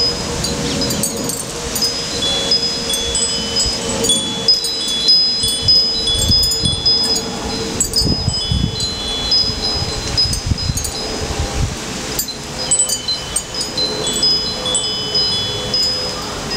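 Small metal wind chimes tinkling irregularly, many high ringing notes overlapping, over a steady low hum, with low rumbles of wind on the microphone in the middle stretch.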